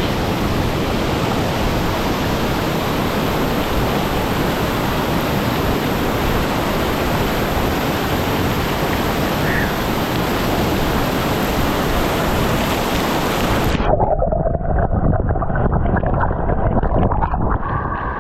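Waterfall pouring into a plunge pool, heard close up as a loud, steady rush of water. About fourteen seconds in, the sound abruptly goes dull and muffled, heard from under the water.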